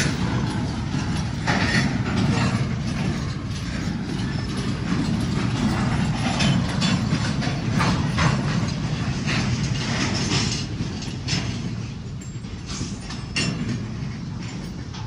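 Freight cars rolling slowly through a rail yard during switching: a steady low rumble with irregular metallic clicks, clanks and short high squeaks from the wheels and couplings, easing off a little near the end.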